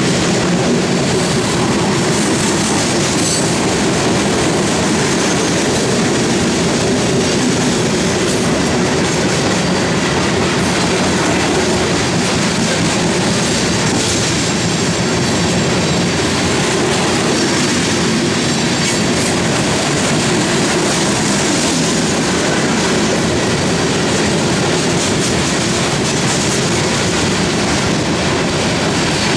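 Loaded coal cars of a freight train rolling steadily past on steel rails, an even, unbroken wheel-on-rail noise.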